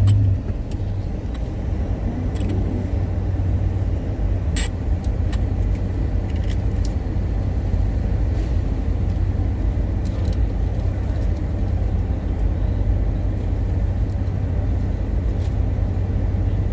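Steady low rumble of a car heard from inside the cabin, with a few faint clicks now and then.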